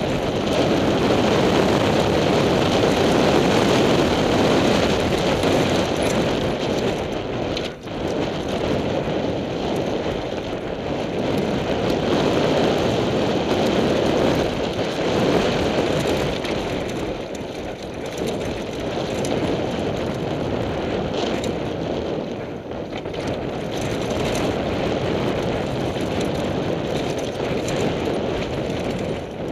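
Steady rushing noise of a downhill mountain bike descending a rocky dirt trail: wind buffeting the microphone mixed with tyres crunching over loose rock and the bike rattling, with one brief dip about eight seconds in.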